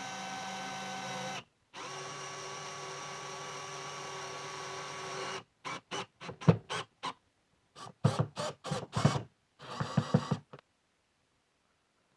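Compact cordless driver motor running steadily in two long runs as it drives a toilet seat hinge screw. It is followed by a string of short trigger bursts as the screw is seated.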